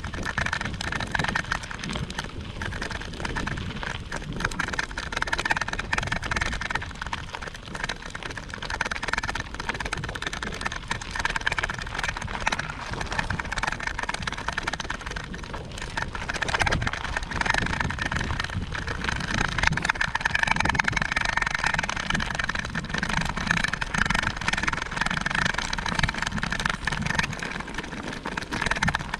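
Steady noise of a vehicle under way, with wind and road noise and a low engine rumble, holding even without pauses.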